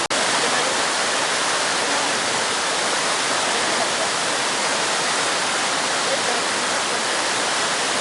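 Waterfall cascading over rock: a steady, even rush of falling water, with a brief gap right at the start.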